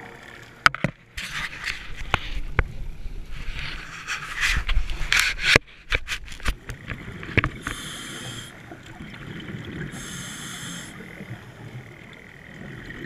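Underwater sound heard through a GoPro's housing: scattered clicks and knocks and rough bubbling noise, then a hiss of about a second that comes back three times, every two to four seconds, like a diver breathing underwater.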